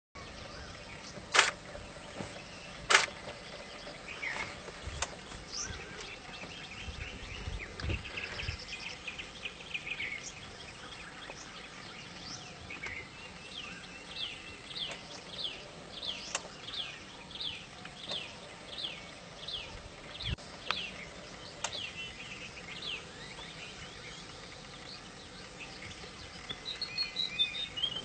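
Wild birds chirping over a steady outdoor background. From about 13 to 23 seconds in there is a regular run of short, falling chirps at about two a second, and a short rippling trill near the end. Two sharp clicks come near the start.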